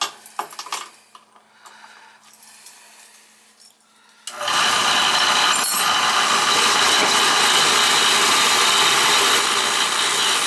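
A few light clicks, then about four seconds in a Beckett oil burner's motor and blower start suddenly and run with a loud, steady, noisy whir. The motor-to-pump coupling is broken, which the technician diagnoses, so the motor spins without driving the oil pump and the burner does not fire.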